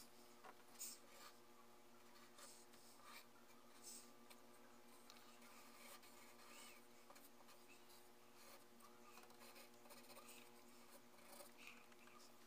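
Faint scratching of a graphite pencil drawing on paper, in short irregular strokes, over a steady low hum.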